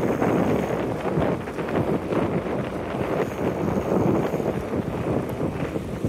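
Wind buffeting the microphone while cycling at about 25 km/h: an uneven, fluttering rush of noise.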